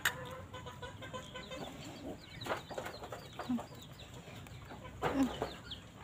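Chickens clucking, with a few louder clucks about two and a half and five seconds in, over many short high chirps.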